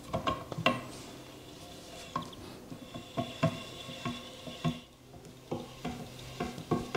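Ratchet wrench and socket turning the new steel main screw into the milling vice, the ratchet clicking in short, irregular runs of sharp metallic clicks with brief pauses. The screw has to be wound in with the wrench because the new bush is a little tight on it.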